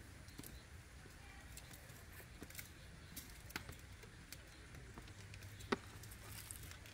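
Quiet outdoor ambience: a low steady rumble with faint scattered clicks and rustles, and one sharper click near the end.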